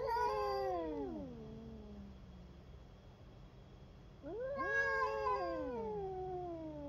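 A cat yowling in a confrontation with another cat: two long, drawn-out yowls. The first rises and then slides down in pitch as it fades over about two seconds. The second starts about four seconds in, rises and then falls slowly.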